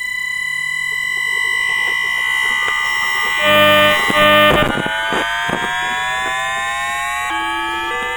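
Bombardier Mitrac IGBT VVVF traction inverter of a London Underground 2009 Tube Stock train, picked up electromagnetically by a telephone pickup coil rather than a microphone. It begins as a steady whine. About four seconds in, a loud change of pulse pattern comes, and then the tones rise steadily in pitch as the motor speeds up under power, with a small step near the end.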